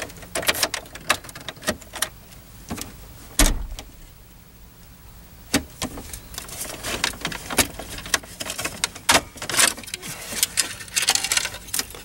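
Hands working the steering column of a 1996 Chevrolet Suburban: scattered clicks and plastic rattles as the column gear selector is pulled down and the upper plastic shroud is worked off, with keys jangling on the ring in the ignition and one heavy knock about three and a half seconds in.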